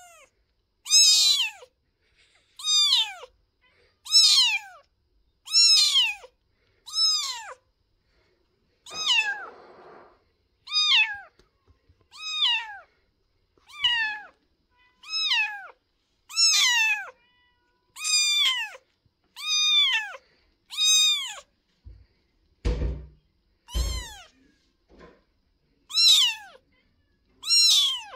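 Young orphaned tabby kitten meowing over and over, the crying of a kitten separated from its mother: short high cries, each falling in pitch, about one every second and a half. A couple of dull low thumps come about three-quarters of the way through.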